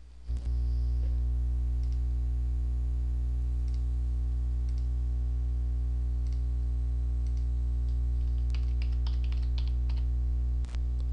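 A steady low hum starts abruptly just after the beginning and cuts off near the end, under scattered mouse clicks. About three-quarters of the way through comes a short run of computer keyboard typing.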